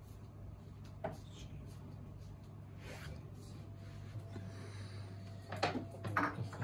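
Quiet room tone with a steady low hum, a couple of light knocks, and a few brief voice sounds near the end.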